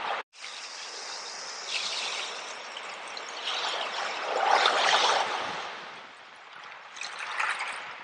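Small ocean waves breaking and washing up over a beach of shells and pebbles, a steady hiss of water. One wave swells loudest about halfway through and a smaller one follows near the end, with a split-second dropout just after the start.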